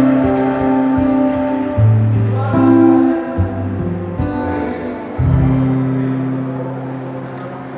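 Acoustic guitar strumming slow chords, changing every second or two; the last chord, struck about five seconds in, rings and slowly fades.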